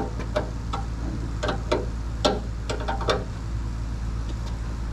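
Irregular metallic clicks and clinks of a wrench working on fuel line fittings under a car, over a steady low hum.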